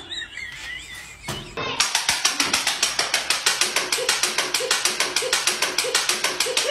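Rapid, even clicking, about six sharp clicks a second, starting a little under two seconds in, with a faint low tone recurring about every half second.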